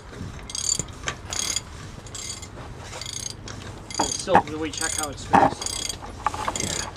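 A ratcheting wrench clicking in repeated strokes as it tightens the outer lock nut on a heavy truck's rear wheel-bearing hub, with two louder moments about four and five and a half seconds in.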